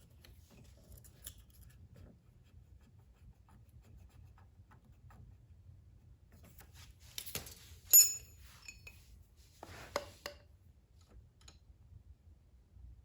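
Small metal hand tools clicking and tapping on the small engine's valve train while its valve lash is checked, with one sharp metallic clink that rings briefly about eight seconds in.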